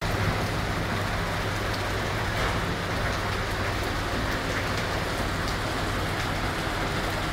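Steady rain falling on a flooded street, with scattered drops ticking, while a car's wheels push slowly through the running water along the kerb.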